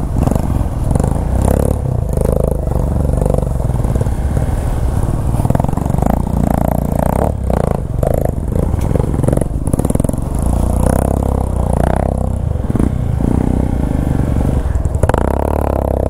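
Off-road vehicle engine running at low revs with uneven throttle, with repeated knocks and clatter from the vehicle working over rough, rocky forest ground.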